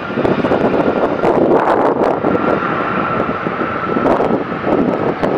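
Airbus A330-300's Pratt & Whitney PW4000 turbofans on the landing rollout just after touchdown: a loud rushing jet noise with a steady high whine, swelling and easing in waves.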